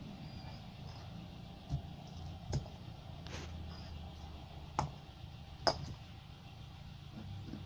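Lumps of broken concrete knocking against each other as they are lifted and dropped: four sharp knocks spread over a few seconds, with a brief scrape between them, over a steady low background noise.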